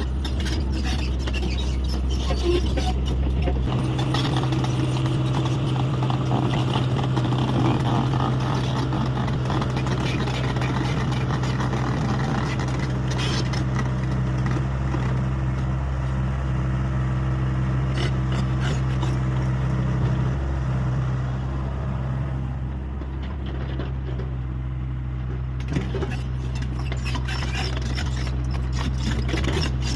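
Hyundai 85A excavator running steadily while working, its engine note shifting about four seconds in. The sound eases off for a few seconds a little past the twenty-second mark.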